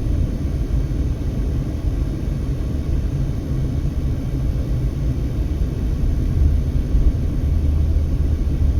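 Steady low rumble of a car being driven: road and engine noise, with wind on a windy day.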